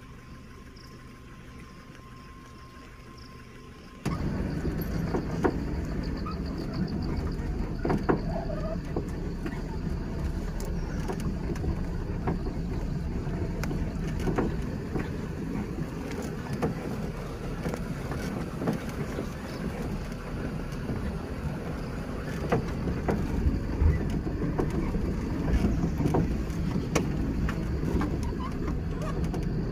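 A faint steady high tone over quiet forest air, then about four seconds in an abrupt switch to a safari jeep driving along a rough dirt forest track: a continuous low rumble of engine and tyres with many knocks and rattles from the bumps.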